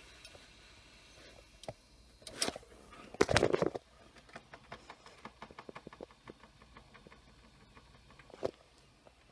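Handling noises: scattered light clicks and taps, a louder scraping rustle about three seconds in, and a single knock near the end.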